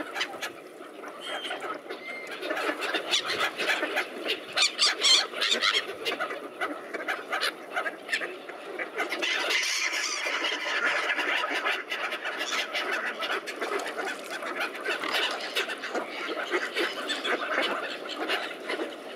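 A crowded flock of mute swans and mallards feeding on a river, a busy continuous mix of waterfowl calls and short clicks of bill and water.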